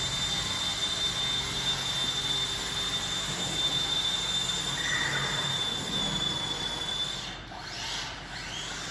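Electric drill running steadily, boring holes for steel pins through large logs, with a high steady whine over a low hum that stops about seven seconds in.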